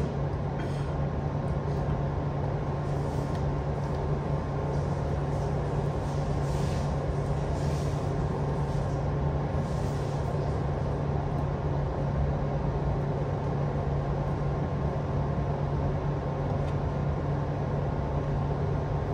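Steady low hum and rumble of background machinery, unchanging throughout, with a few faint brief rustles from chopsticks working in a cardboard noodle box in the first half.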